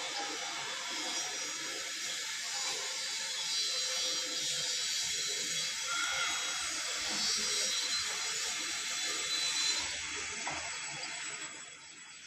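Samsung inverter washing machine running, making a steady hiss that fades away near the end.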